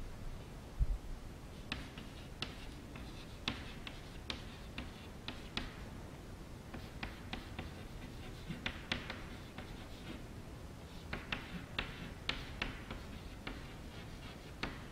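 Chalk tapping and scratching on a chalkboard as words are written out: irregular sharp clicks a few times a second, with a single dull thump about a second in.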